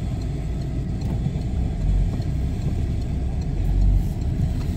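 Car's engine and tyre rumble heard from inside the cabin while it drives slowly: a steady low rumble that swells briefly about two seconds in and again near four seconds.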